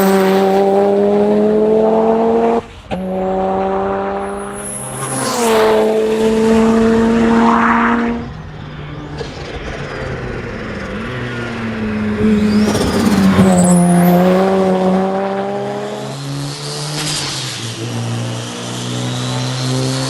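Turbocharged performance car engines revving and running under load in a series of short clips. Each engine note holds, then drops or shifts, and there is a brief high whistle about five seconds in.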